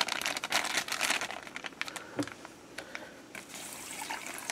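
Plastic MRE beverage bag crinkling as it is handled and opened, with many small crackles, loudest in the first second or so. Near the end, water from a bottle starts pouring into the bag.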